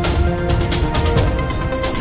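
News channel's closing theme music: held synth tones over a steady, fast percussion beat, about four hits a second.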